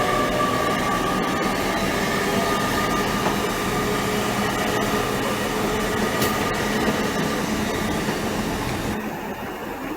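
Train moving along the station platform: a steady running noise with a high, even whine over it. The higher sound falls away about nine seconds in.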